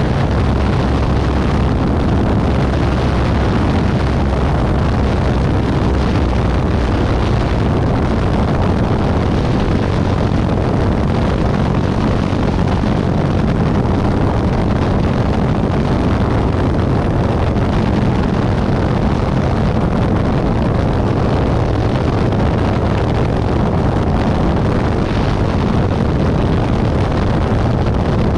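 Single-engine light aircraft's piston engine and propeller running at a steady drone, mixed with rushing airflow, during the descent toward the runway.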